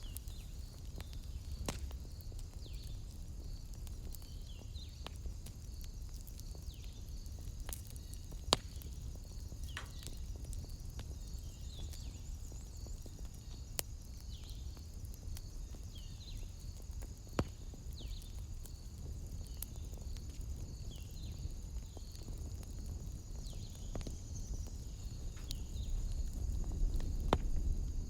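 Wood fire crackling, with scattered sharp pops (two louder ones) over a low rumble that swells near the end. Behind it runs a steady high trill with short falling chirps.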